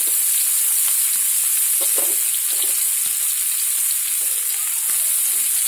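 Chopped onions and garlic sizzling in hot oil in a frying pan: a steady high hiss with scattered small crackles.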